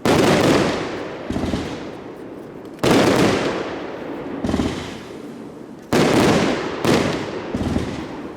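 Funke Fermata 25B firework battery firing shot after shot: four loud bangs with smaller ones between, each followed by a fading rush of noise.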